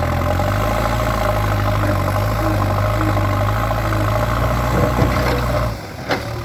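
JCB 3DX backhoe loader's diesel engine running steadily. Near the end the deep engine sound drops away abruptly, and a single sharp knock follows.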